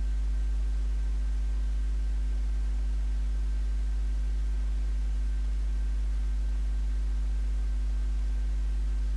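Steady low electrical mains hum with its overtones, over a hiss and a faint thin high tone, unchanging throughout.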